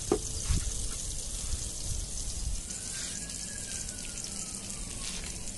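Food frying in hot oil off to the side: a steady sizzle with fine crackles.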